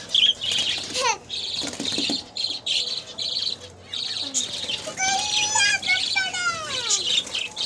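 Caged budgerigars chirping rapidly and continuously, with a few longer calls falling in pitch about five to seven seconds in.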